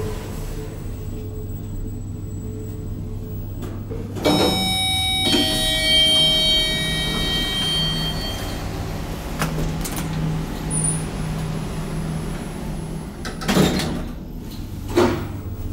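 TH Hissi traction elevator in operation: a sudden metallic clank with ringing tones that fade away about four seconds in, then a low pulsing hum while the car travels, and two knocks near the end.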